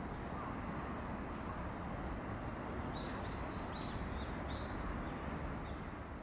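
A series of about six short, high chirps of a small bird, starting about three seconds in, over a steady low outdoor rumble.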